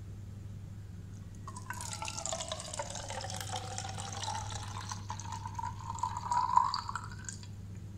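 Milk poured from a steel pot into a plastic feeding bottle, starting about a second and a half in and stopping near the end, the filling tone rising in pitch as the bottle fills.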